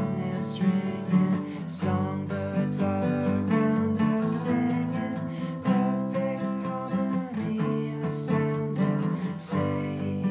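Acoustic guitar strumming chords in a steady rhythm: an instrumental passage of a folk-style song.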